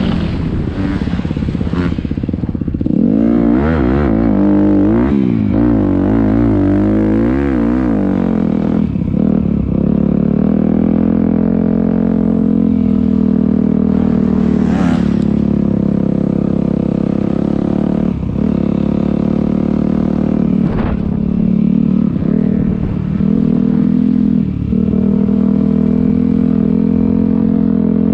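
Honda dirt bike engine revving under load, its pitch rising and falling quickly over the first several seconds, then holding a steadier drone broken by a few short throttle cuts.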